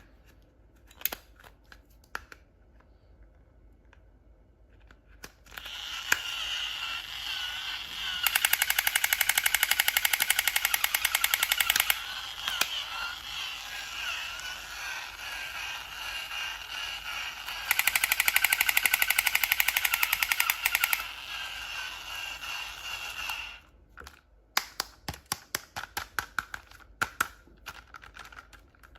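Rapid gunfire in two long bursts of about three to four seconds each, over a steady hiss, followed near the end by a run of scattered sharp clicks.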